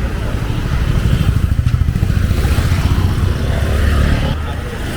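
A small motor vehicle's engine passing close by on the street, swelling about a second in and fading just after four seconds.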